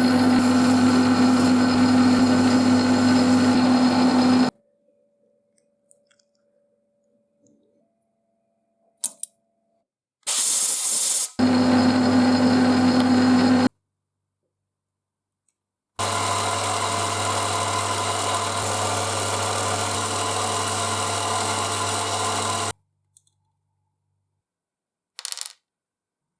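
Metalworking machine tool's electric motor running steadily with a hum, in three separate runs that start and stop abruptly with silent gaps between. A short, loud hiss comes just before the second run.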